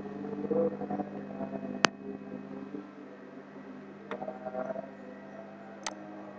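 Steady low hum of a computer fan or mains, with two sharp mouse clicks, one about two seconds in and one near the end.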